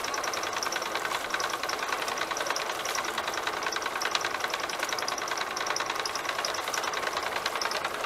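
Small engine of a water pump running steadily at a constant speed, draining the pond.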